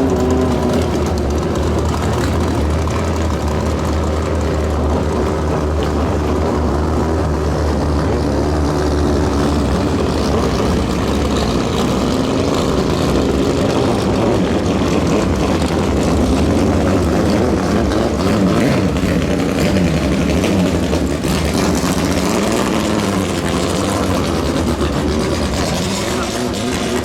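Racing longtail boat engines running steadily, their pitch wavering up and down.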